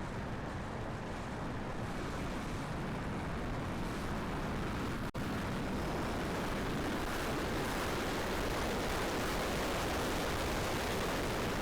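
Strong wind rushing over the microphone as a steady, even noise, cut by a momentary dropout about five seconds in.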